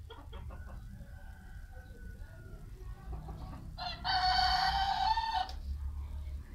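A rooster crows once, loud, about four seconds in, the call held for about a second and a half. Before it, the flock clucks softly.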